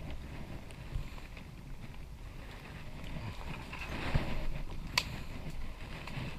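Wind rumbling on the microphone outdoors, with a few scattered knocks and a sharp click or snap about five seconds in.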